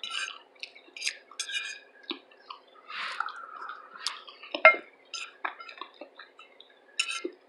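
Close-miked eating sounds: wet chewing and mouth smacking, mixed with a few light clinks of cutlery on a plate, the sharpest click about four and a half seconds in.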